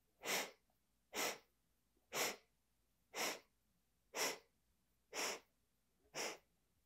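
A woman taking short, quick sniffs in through the nose, seven evenly spaced, about one a second, each a brief hiss. This is the yoga air-packing breath: the lungs are filled in small stages on one long inhale.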